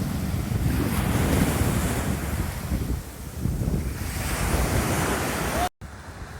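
Black Sea waves washing ashore, swelling and easing, with wind buffeting the microphone. Near the end the sound drops out for a moment and comes back quieter.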